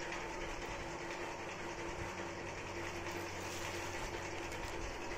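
Steady mechanical hum with a constant hiss, unchanging throughout.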